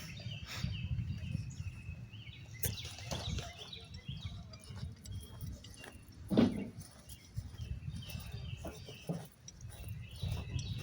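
Birds chirping over and over, short high falling calls, with a steady low rumble underneath and one brief louder thump about six seconds in.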